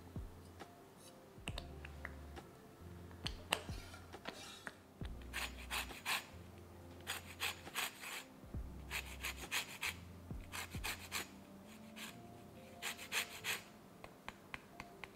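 Lemon rind being grated on a fine rasp grater, starting about five seconds in: groups of short, quick rasping strokes.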